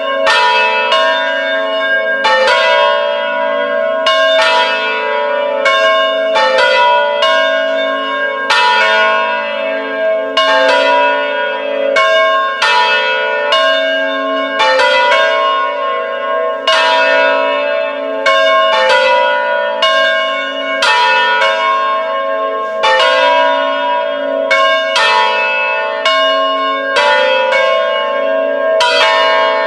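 Three church bells, a 1945 Angelo Bianchi peal in A, rung "a distesa": swinging in full on their wheels, the strikes following one another irregularly at about two a second, each ringing on under the next.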